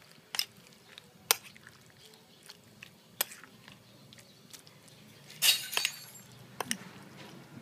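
Metal spoon clinking against a bowl while mixing sliced raw beef with egg and marinade: scattered sharp clinks, the loudest a quick cluster about five and a half seconds in.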